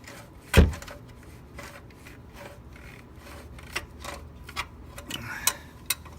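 A sharp knock about half a second in, then scattered light clicks and a brief scraping rub near the end: tools and parts being handled while an oil filter is fitted on a car.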